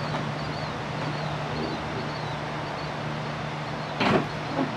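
A steady low machine hum, with faint short high chirps repeating every half second or so, and a loud short knock or rustle about four seconds in, followed by a smaller one.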